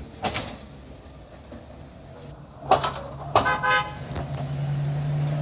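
A short horn toot about three and a half seconds in, then a steady low diesel hum that grows louder, as of a locomotive drawing near.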